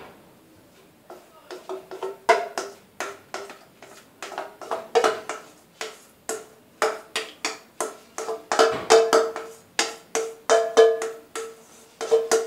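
A spatula knocking and scraping against a ringing metal mixing bowl as the last cake batter is worked out into a tube pan. There are many sharp knocks, about three a second, starting about a second in, and the bowl rings on after each one.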